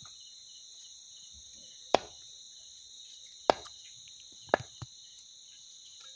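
A long knife chopping skinned frogs on a wooden stump chopping block: a sharp chop about two seconds in, another at three and a half seconds, and a quick pair of chops near four and a half seconds. Crickets chirp steadily throughout.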